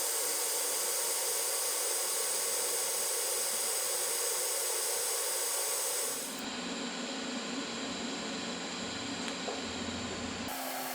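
TIG welding arc hissing steadily, with argon flowing through a gas lens on the torch; about six seconds in the sound shifts to a duller, lower hiss.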